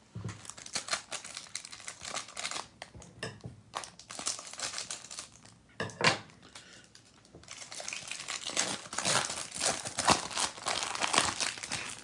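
Trading-card packaging being handled: plastic wrapping and a cardboard box crinkling and rustling in irregular bursts, with one sharper knock about six seconds in.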